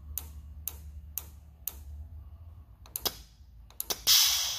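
Steady ticking about twice a second over a low hum that fades out about two seconds in. Near the end come a few clicks and then a short, loud hiss of compressed air let out of a car's onboard air system as it is tested.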